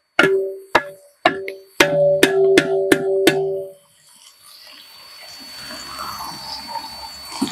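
A metal ladle knocked about nine times against the rim of a large aluminium cooking pot, each knock ringing at the same pitch. Then, about halfway, this gives way to the soft, slowly swelling sizzle of sliced onions frying in oil as they are stirred.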